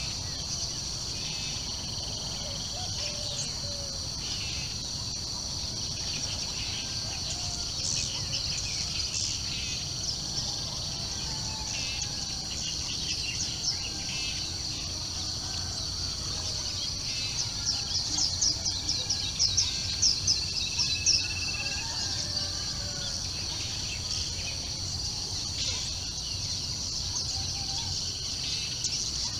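Morning bird chorus: many birds chirping and calling over a steady high drone of insects, with a low rumble beneath. The chirps come thickest and loudest about two-thirds of the way through.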